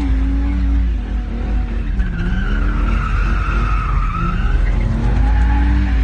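Holden VS Commodore doing a burnout on its welded rear diff. The engine is held at high revs, sags about two seconds in and climbs again near the end, while the rear tyres spin and squeal on the road.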